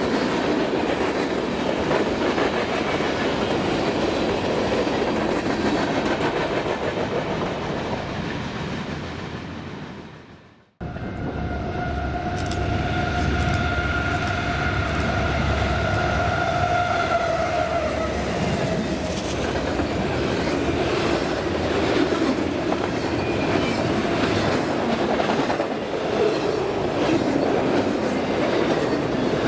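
Freight train cars rolling past with a steady rumble and clickety-clack. The sound fades out and cuts off about ten seconds in. Another stretch of train then starts with a low rumble and a steady tone for several seconds, followed by more cars rolling by.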